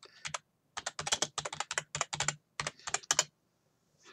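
Typing on a computer keyboard: a couple of keystrokes at the start, then a quick, uneven run of key clicks for about two and a half seconds.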